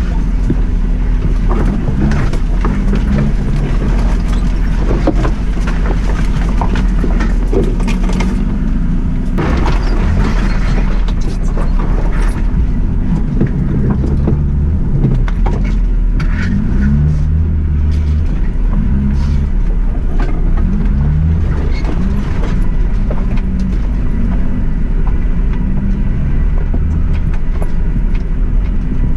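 Suzuki Jimny's engine running at low speed, its pitch rising and falling with the throttle, with frequent knocks and rattles as the car bumps along a rough unsurfaced lane.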